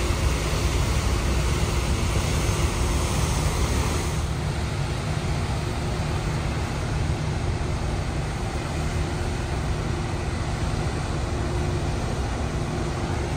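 Steady outdoor rush with a heavy, buffeting low rumble, typical of wind on the microphone on a ship's balcony, over a faint steady machinery hum.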